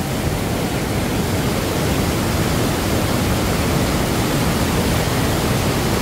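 Steady rushing of a waterfall and the white-water rapids below it, the mountain stream running high.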